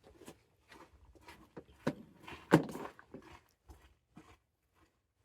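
A series of short clicks and knocks, with a sharp knock just before two seconds in and a louder, sharper one about half a second later.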